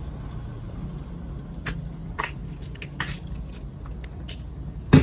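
A Zippo lighter being handled, giving a few faint clicks and taps and one sharp, louder click near the end, over a low steady hum.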